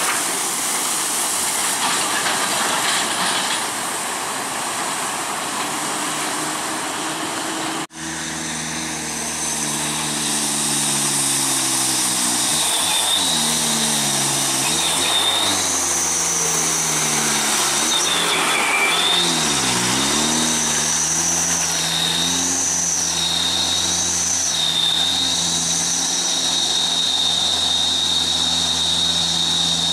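A heavy truck passing on a wet road with a steady hiss. After a sudden break, a loaded Hino 300 dump truck's diesel engine works hard uphill, its pitch dropping and climbing again several times as it changes gear. From about halfway, a high steady whine runs alongside.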